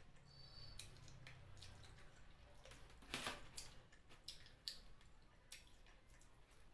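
Faint wet eating sounds: scattered soft clicks and squelches from chewing and sucking on chicken feet in curry, with a slightly louder smack about three seconds in.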